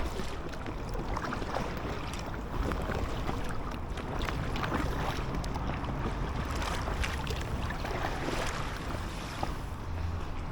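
Wind noise rumbling on the microphone over small waves splashing and lapping against an inflatable kayak on choppy water.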